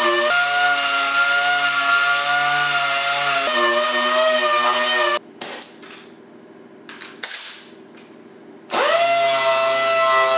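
Random orbital sander running against wood, sanding a thin cured epoxy glaze off an epoxy-infused board, with a steady whine. It shuts off about five seconds in, with a few short bursts of noise during the pause, then a second sander spins up with a quick rising whine and runs steadily.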